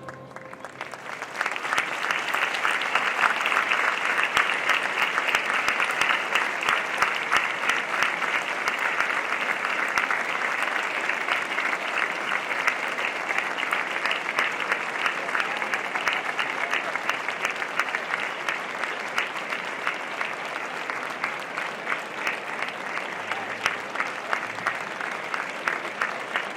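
Audience applauding steadily after a band performance, building up about a second in.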